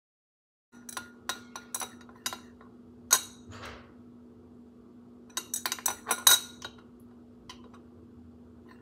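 Glass stirring rod clinking against the inside of a glass beaker as a solution is stirred during a titration: a scatter of sharp clinks, with a quick cluster of them about five to seven seconds in, over a faint steady hum.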